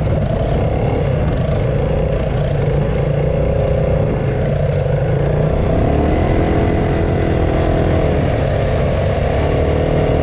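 ATV engine running steadily under way, its pitch shifting about six seconds in.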